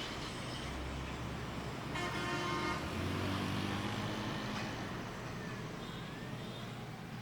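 City street traffic noise: a steady wash of road traffic with a car horn honking about two seconds in, followed by a deeper, longer horn.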